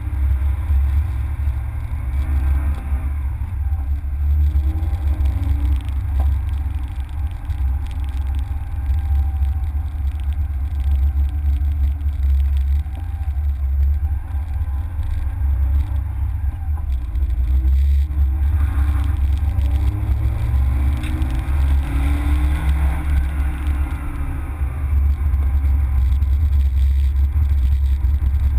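Citroën Saxo VTS's 1.6-litre 16-valve four-cylinder engine heard from inside the cabin, its revs rising and falling several times through the gears. A heavy low rumble runs underneath throughout.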